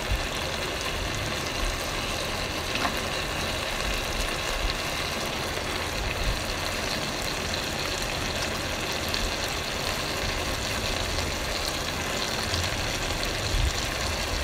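Rice, potatoes and onions sizzling steadily in hot oil in a pressure cooker as they are fried before water is added.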